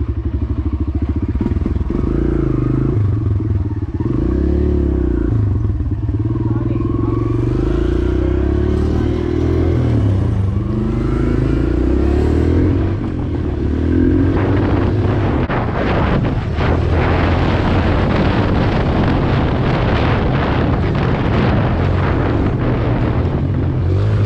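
Kawasaki KLX140 pit bike's single-cylinder four-stroke engine running and revving, its pitch rising and falling. About halfway through the sound turns rougher and noisier.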